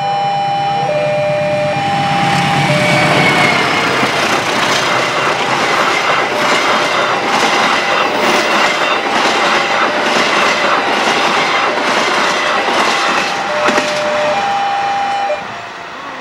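A passenger train's horn sounds in steady tones as the train arrives, then the train passes at speed with a loud rumble and rapid clickety-clack of wheels over the rail joints. A short horn note comes again near the end, and the sound drops off sharply about a second before the end.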